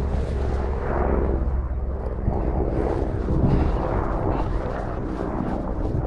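Wind rumbling on a GoPro Hero 8's built-in microphone: a steady low rumble with patchy rustling and small knocks from the camera being carried along.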